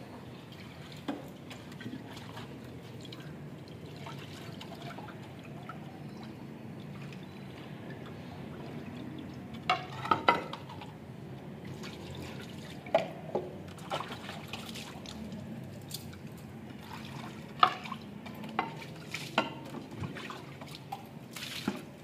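Tap water running and splashing while a plate is washed by hand, with several sharp clinks of the plate scattered through, a cluster of them about ten seconds in.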